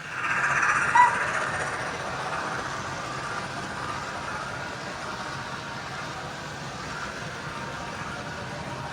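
Hornby 9F model steam locomotive hauling a long rake of open wagons at speed on a model railway layout: a steady rumble and clatter of small wheels on track, loudest as the train comes close at the start, with one short sharp blip about a second in.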